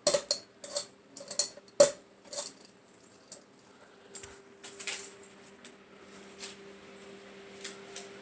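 Hunter Discovery ceiling fan's metal pull chain and switch rattling and clicking in quick succession for the first couple of seconds, with a few more clicks after. About four seconds in, the fan motor's steady low hum comes up as it runs at low speed.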